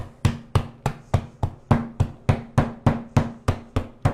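End of a wooden rolling pin pounding caramelized pecans to crush them, a steady run of sharp knocks about three to four a second.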